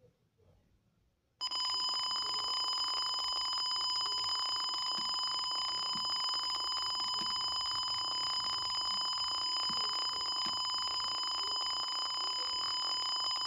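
Simulated piezo buzzer sounding a steady, unbroken electronic beep tone, starting suddenly about a second and a half in: the tank monitor's leakage alarm, set off by the liquid level falling near empty.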